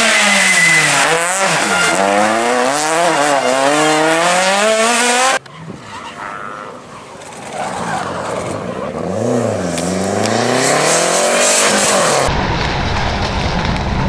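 Rally car engines at full throttle in three cuts: a small rally hatchback revving hard, its pitch climbing and dropping through quick gear changes; then a Renault 5 rally car engine, quieter at first, revving up through a corner; then near the end the fuller, deeper sound of a Mitsubishi Lancer Evolution X's turbocharged four-cylinder.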